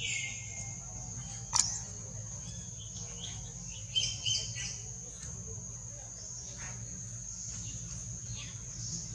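Outdoor ambience: a steady high-pitched insect drone, with a short falling chirp at the start, a cluster of bird chirps about four seconds in, and a sharp click about a second and a half in.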